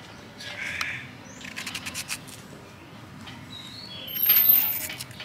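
Light clicks and taps of kitchen utensils at work during food preparation, with short bird chirps. A louder hissing noise comes about four seconds in and lasts under a second.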